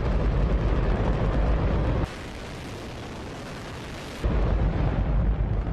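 Hydrogen-oxygen rocket engine firing on a test stand: a loud, continuous rush of noise with heavy low rumble. About two seconds in, it turns thinner and quieter for roughly two seconds, then the full rumble returns.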